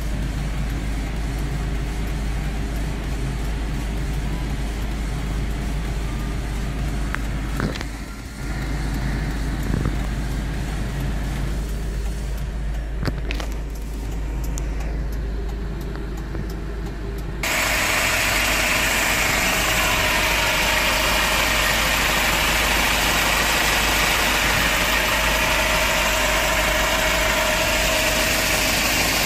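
Hyundai Porter II truck's engine idling steadily, first muffled from inside the cab. A little over halfway through it becomes suddenly louder and brighter, heard up close at the open engine compartment under the seat. A few light knocks come earlier.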